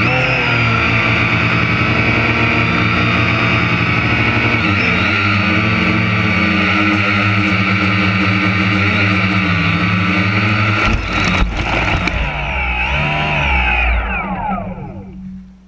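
A large machine engine running steadily at speed with a high whine. A few knocks come about eleven seconds in, then it is shut off near the end and winds down, its pitch falling until it goes quiet.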